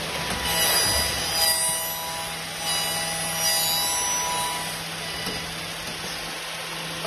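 MXZ7203 woodworking copy milling machine running and cutting wood, with a high whine from its spinning cutter over a steady low hum. The whine comes in about half a second in and fades out about five seconds in.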